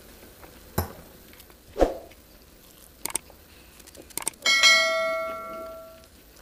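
A subscribe-button animation's sound effects: quick clicks, then a notification bell ding that rings out and fades over about a second and a half. Earlier, two sharp taps.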